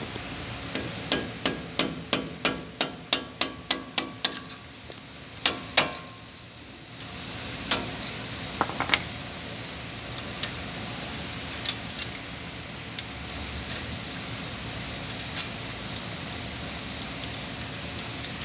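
Hammer striking metal on a pickup's front wheel hub assembly while it is dismantled: a quick run of about a dozen blows, roughly three a second, then two harder blows. Scattered lighter metallic clinks and taps follow.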